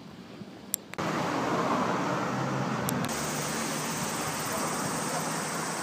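Steady road traffic noise from cars on a city street, which comes in abruptly about a second in after a quieter stretch with a couple of sharp clicks.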